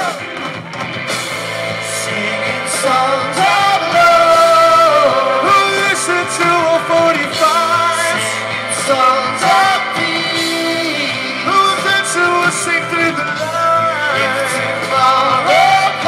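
Live band playing an upbeat song with electric guitars, keyboard, drums and a horn section of saxophones and trumpet, with voices singing over it. The music grows louder over the first few seconds.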